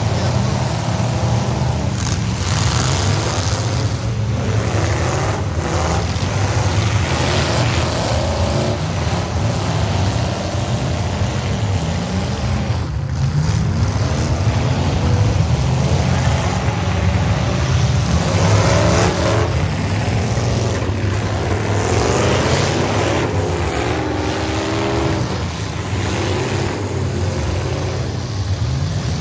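Engines of several full-size demolition derby trucks and SUVs running and revving together, their pitch repeatedly rising and falling as they rev.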